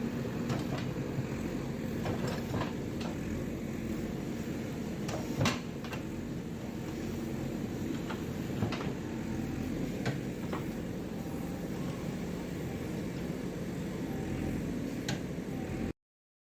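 JCB excavator's diesel engine running steadily, with scattered knocks and clanks as it works soil, the loudest about five and a half seconds in. The sound stops abruptly just before the end.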